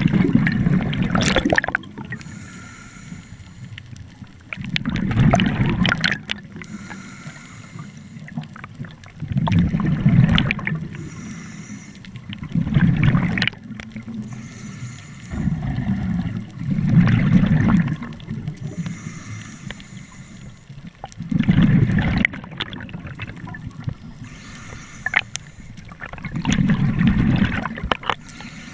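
Scuba breathing heard underwater: regulator exhaust bubbles burst out in loud gurgling surges about every four seconds, each lasting a second or two.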